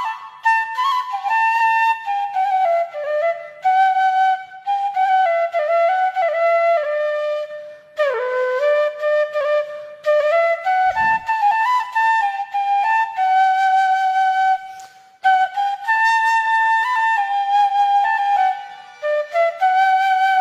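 Solo flute playing a slow melody, single held notes that step and slide in pitch, with short pauses between phrases.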